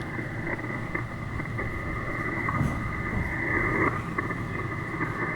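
HF ham radio receiver hissing with static through its speaker, the noise squeezed into a narrow band by the receiver's audio filter, while it waits on a weak distant station.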